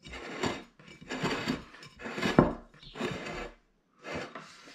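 A ceramic dinner plate being turned and slid on a wooden table, with a run of rubs and knocks and one sharper knock about two and a half seconds in.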